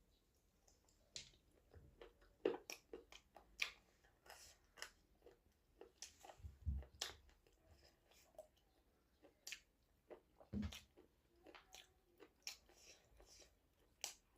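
A person chewing and eating close to the microphone: quiet crunches, mouth clicks and smacks at irregular intervals, with a couple of soft low thumps.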